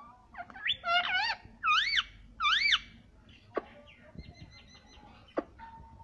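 Rose-ringed parakeet (Indian ringneck) vocalising: loud whistled phrases that swoop up and down in pitch, three main ones in about two seconds, followed by a few faint clicks.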